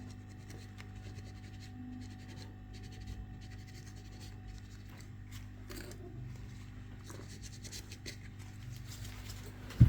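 Light scratching and rubbing of a small tool on a phone circuit board as the charging-port solder pads are cleaned, over a steady low hum. A single sharp knock comes near the end.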